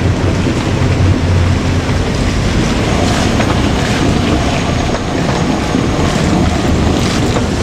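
JR Kyushu KiHa 200 diesel railcar passing close by: a low, steady engine drone for the first two seconds or so, giving way to a loud, even rushing rumble of the train running on the rails.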